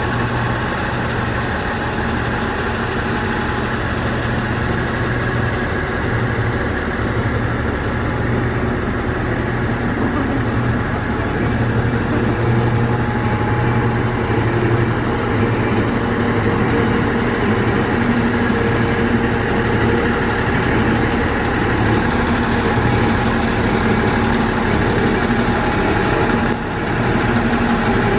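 Diesel railcar engine idling steadily, getting a little louder about twelve seconds in, with a brief dip near the end.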